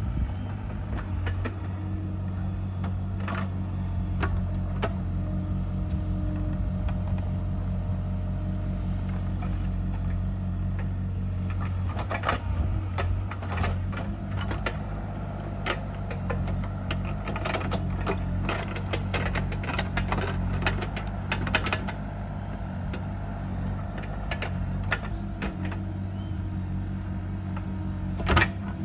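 Bobcat E37 compact excavator's diesel engine running steadily, with many sharp clanks and knocks from the machine at work.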